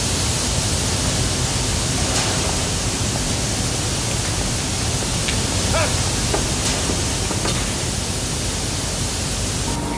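Grain pouring in a steady stream from a storage hopper onto a man lying beneath it: a continuous, even rushing hiss.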